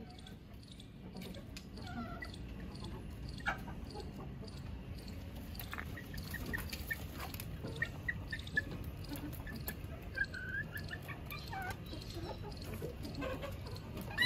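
A flock of chickens clucking softly now and then in short calls, with a sharp click about three and a half seconds in.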